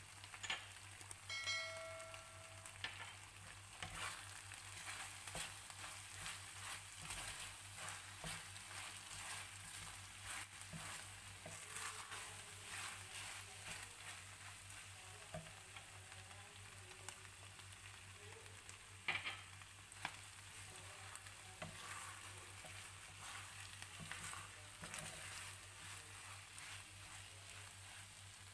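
Chicken and button mushrooms in thick teriyaki sauce sizzling in a frying pan while a wooden spatula stirs them, with irregular clicks and scrapes of the spatula against the pan. A brief ringing tone sounds about a second in.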